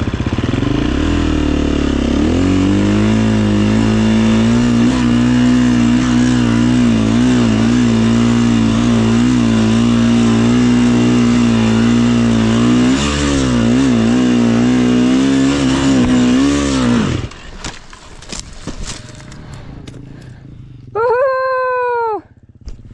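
Husqvarna FE350 four-stroke single-cylinder dirt bike climbing a rocky hill under load, its engine note rising and falling with the throttle, then cutting out abruptly at about 17 s as the bike goes down and stalls. A few knocks follow, and near the end there is a short, loud, high-pitched shout.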